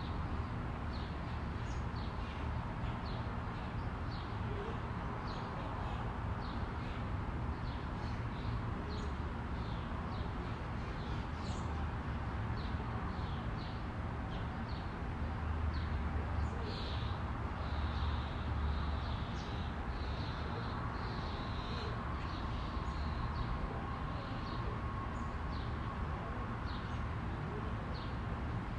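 Outdoor ambience: a small bird chirps over and over, short high notes about once or twice a second, with a longer run of song about two-thirds of the way through, all over a steady low rumble.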